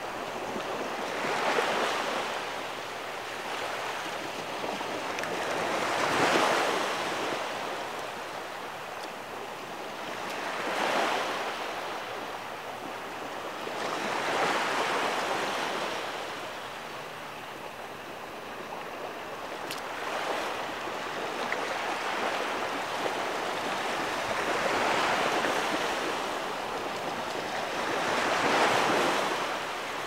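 Small surf waves washing up a sandy beach: a steady hiss that swells and fades about every four to five seconds.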